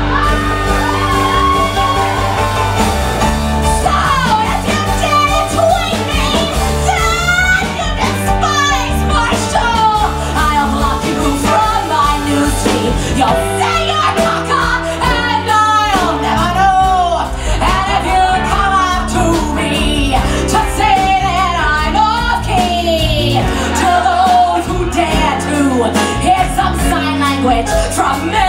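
A woman singing into a microphone over a live band of piano, bass guitar, guitar and drums.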